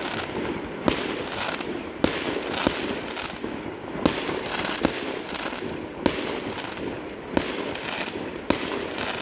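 Fireworks display bursting overhead: sharp bangs at irregular intervals, about one a second, over a continuous background haze.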